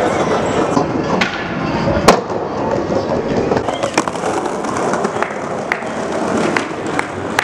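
Skateboard wheels rolling over stone paving, with sharp clacks now and then as the board rides over the ground; the loudest clack comes about two seconds in.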